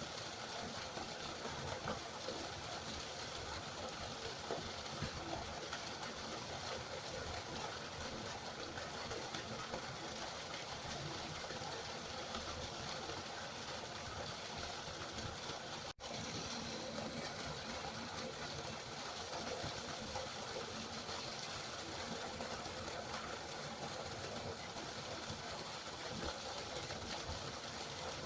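Steady rushing and babbling of river water, with a momentary drop-out about halfway through.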